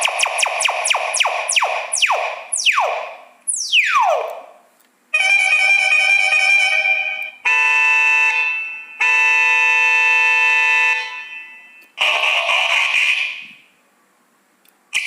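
Electronic multi-tone horn and sound-effects module cycling through its sounds: quickly repeated falling sweeps that slow to two long falling sweeps, then three steady chord-like horn blasts of about two seconds each, and a short hissy blast near the end.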